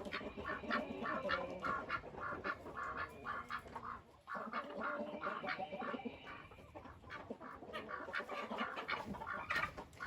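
Chickens clucking in a rapid run of short notes, about three or four a second, with a brief pause about four seconds in.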